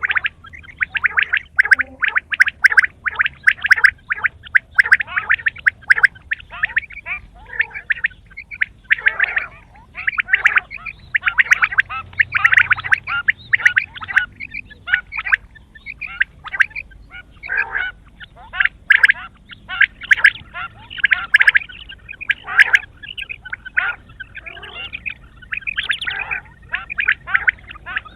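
Quail calling over and over in quick pulsed phrases, one after another with short gaps between them.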